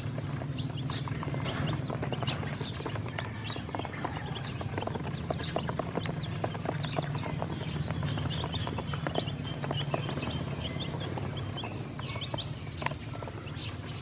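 Ducklings and chicks peeping in many short high chirps while their bills tap and click rapidly on a plastic basin and drinker tray as they feed and drink, over a steady low hum.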